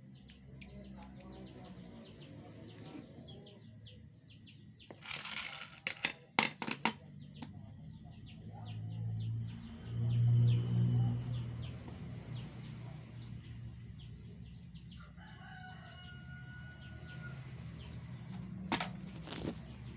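Sharp metallic clicks and clatter of air-rifle parts being handled, in a cluster about five to seven seconds in and again near the end, over steady chirping of birds. A low rumble swells briefly about halfway through.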